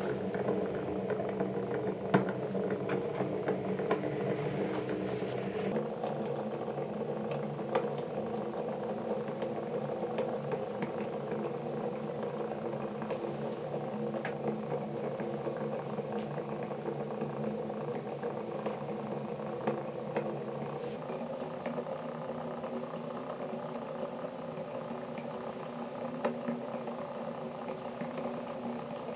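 Glowing-hot metal ball sizzling and crackling against the material it rests on, with scattered small pops and a steady hum underneath.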